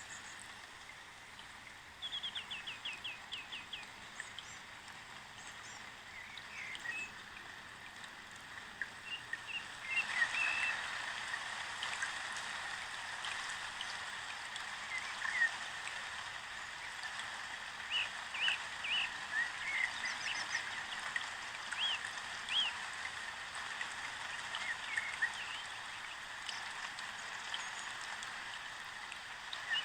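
Birds chirping, with a quick trill near the start and scattered short calls throughout, over a steady hiss that grows louder about ten seconds in.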